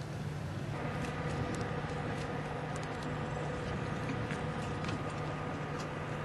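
A steady mechanical hum with a few thin steady tones over it, and scattered light clicks.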